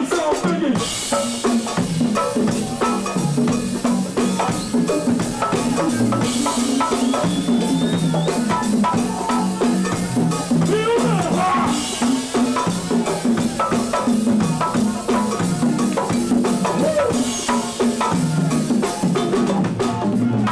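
Live go-go band music: hand-played LP congas over drum kit and a stepping bass line, in a steady, unbroken groove.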